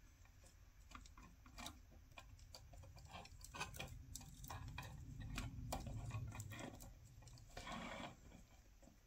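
Faint scattered clicks and taps of a plastic Gunpla model kit being handled as its hand and sword mace are fitted together, with a low rubbing rumble midway and a short scrape about eight seconds in.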